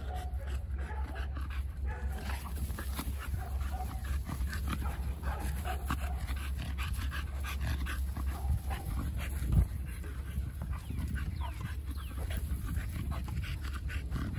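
Dogs panting hard during rough play. A single sharp thump about two-thirds of the way through is the loudest moment.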